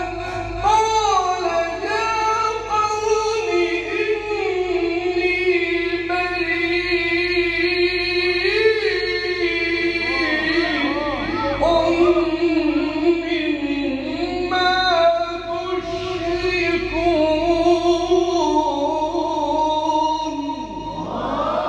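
A male reciter's voice chanting the Quran in melodic maqam style: long held notes with quick ornamental turns and wavering pitch.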